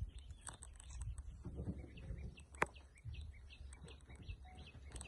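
Small birds chirping in a quick series of short, falling calls over a low rumble, with one sharp click about two and a half seconds in.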